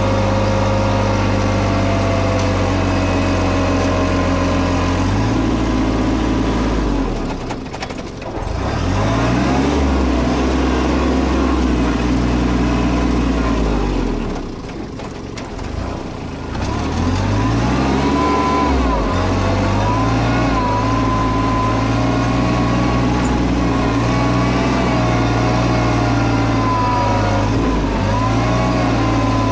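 Kubota B2401 compact tractor's three-cylinder diesel engine running steadily while the tractor works. Its speed drops twice, about a quarter of the way in and again about halfway, and climbs back up each time.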